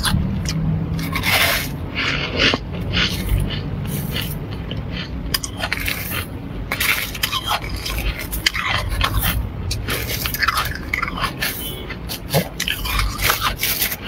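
Flaky freezer frost being scraped and crunched: a busy, irregular run of crisp scratchy crackles.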